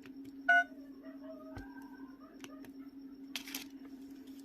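A short electronic beep about half a second in, over a steady low electrical hum, with a brief rustle of handling noise near the end.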